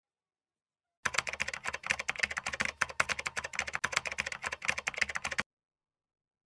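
Typing sound effect: a rapid, dense run of keystroke clicks that starts suddenly about a second in and cuts off suddenly near the end.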